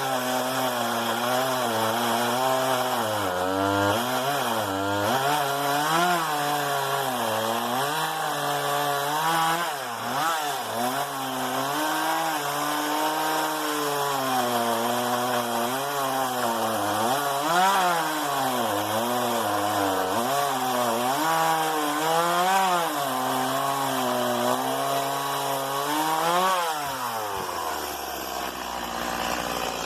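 Stihl MS 170 two-stroke chainsaw running at high revs while cutting wood, its pitch dipping and recovering repeatedly as the chain bites. Near the end the revs fall sharply and the saw settles to idle.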